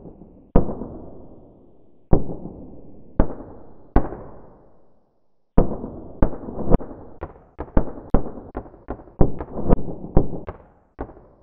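Electric sparking as a wire tip is struck against a current-carrying carbon rod: sharp cracks, each with a short fading tail. A few are spaced out at first, then they come quicker and irregular from about halfway through.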